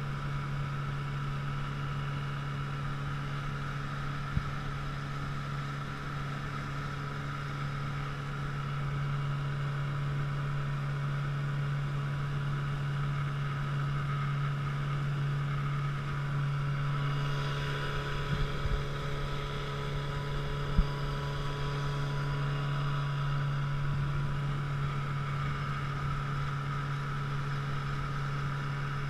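Small boat's motor running at a steady speed, a constant low hum with no change in pitch. A few brief knocks come through it, the sharpest about twenty seconds in.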